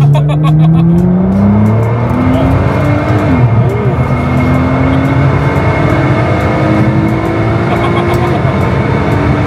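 Car engine accelerating hard through the gears, its note climbing steadily and dropping back at each upshift, three times.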